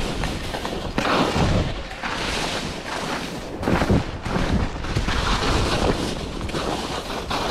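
Wind buffeting the microphone of a head-mounted camera while skis slide and scrape over hard-packed snow on a downhill run, with gusty low thumps and surges.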